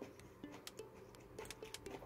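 Faint, irregular clinks of a metal spoon against a ceramic bowl of noodle soup as it is stirred and eaten.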